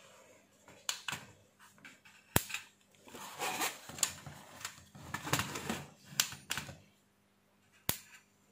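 A battery-powered electric mosquito racket being handled, with a few sharp snaps, the loudest about two and a half seconds in, between stretches of plastic rustling and rattling as the racket and its battery compartment are handled.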